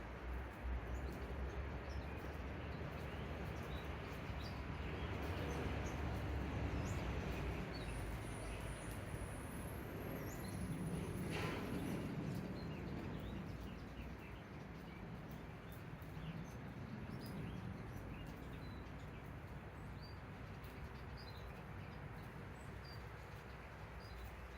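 Faint, scattered short chirps of small garden birds over steady outdoor background noise, with a low rumble in the first several seconds.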